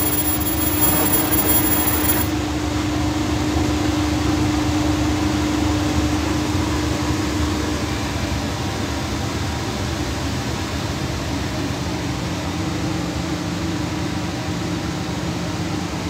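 Fiber laser denim-engraving machine running, with a steady blowing hum from its air and fume extraction. A high-pitched whine cuts off about two seconds in, and a lower humming tone fades out about halfway through, as the engraving run ends.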